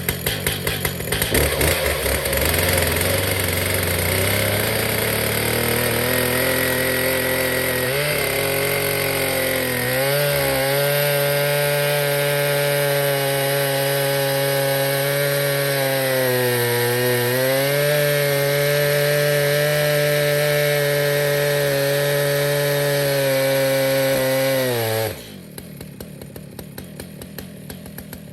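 Stihl two-stroke chainsaw on an Alaskan mill ripping lengthwise through a cedar log. The engine climbs to high revs over the first several seconds, holds steady at full throttle through the cut, cutting really good, then drops suddenly to a low idle near the end.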